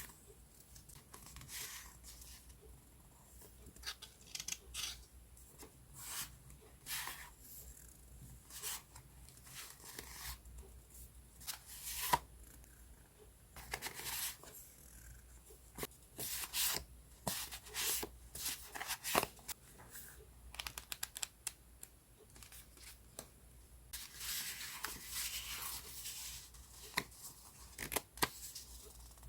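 Sheets of paper journaling supplies handled close up, rustled and torn in short, irregular strokes, with a longer stretch of steady rustling about twenty-four seconds in.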